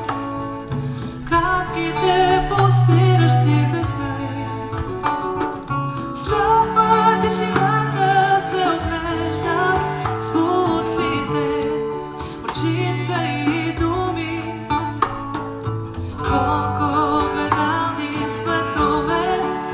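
Live acoustic band music: a steel-string and a nylon-string acoustic guitar playing together with a cello, which holds long low notes, while a woman sings.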